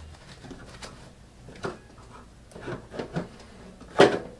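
Handling noises as a small model airplane engine and foam support blocks are set and shifted on a workbench. A few soft knocks and scrapes come first, then one louder knock about four seconds in.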